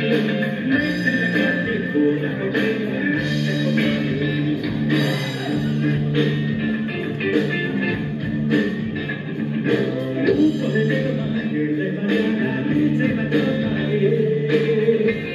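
Background music: a song with guitar and a steady beat.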